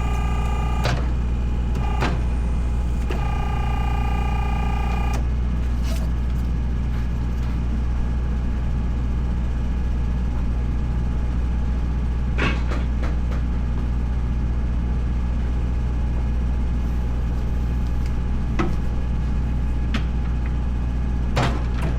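Steady low engine drone, like an idling diesel, with scattered sharp knocks and clicks of tyre work. A brief pitched whine lasts about two seconds, a few seconds in.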